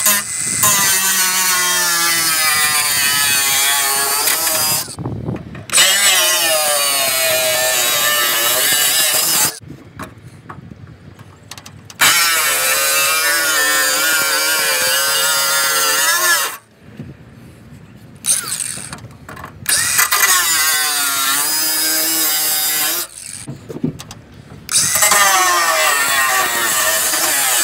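DeWalt 20V cordless angle grinder cutting into the aluminium lip of a diamond-plate truck toolbox, in five bursts of a few seconds each with short pauses between, its whine wavering in pitch as the disc bites.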